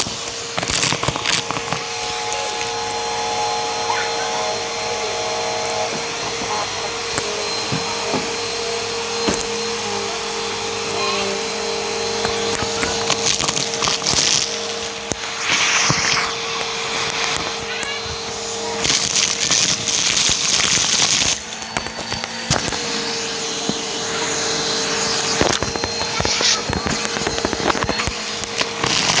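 Vacuum cleaner running with a steady motor whine while its hose nozzle sucks up a pile of sequins, beads and small crunchy bits, which crackle and click as they go up the hose. The rushing airflow gets louder twice, about halfway through and again about two-thirds of the way in.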